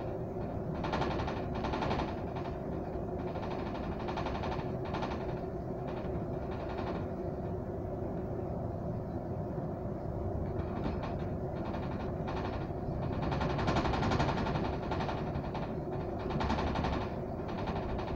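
Inside a moving double-decker bus: a steady engine and road rumble with frequent brief rattles and knocks from the bodywork.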